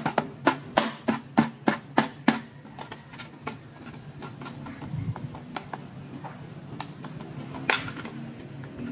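Sharp clicks and taps of hard plastic toy pieces being handled, about three a second at first, then softer and more scattered, with one louder click near the end.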